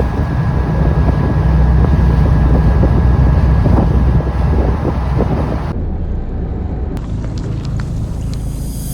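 Boat engine running steadily, with wind buffeting the microphone; the hiss cuts off suddenly about six seconds in.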